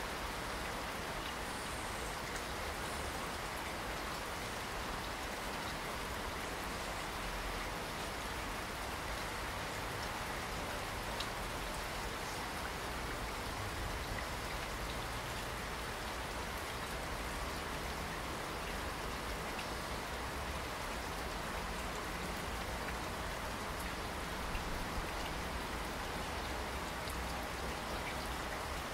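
Steady rainfall: an even hiss of rain, with now and then a single louder drop ticking.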